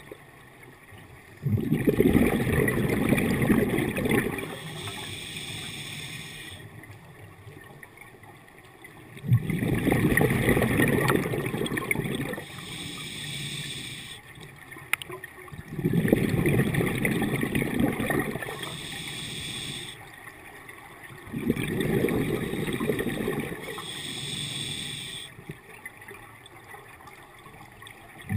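Scuba diver breathing through a regulator underwater: a soft hiss on each inhale, then a burst of gurgling exhaust bubbles for about three seconds on each exhale, four breaths about six to seven seconds apart.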